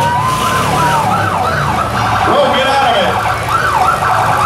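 A siren wailing, rising and falling in pitch: one slow sweep, then several quick up-and-down sweeps, over the steady running of demolition-derby car engines.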